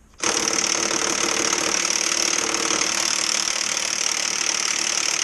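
Cordless 1/2-inch Snap-On impact wrench hammering steadily on the crankshaft pulley bolt of a Honda S2000's F22C engine, starting about a quarter second in; the tight bolt does not yet break loose.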